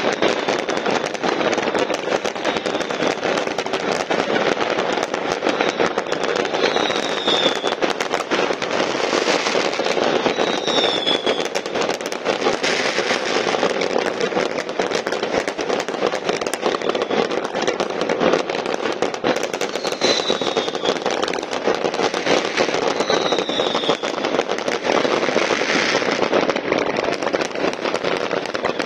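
Massed fireworks and firecrackers going off all over a city at once: a dense, unbroken crackle of countless overlapping bangs and pops, with a few short whistles now and then.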